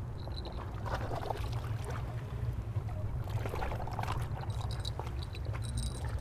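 Steady low rumble of wind and surf at the shore, with scattered light clicks. A fishing-rod bell gives a faint jingle near the start and again near the end.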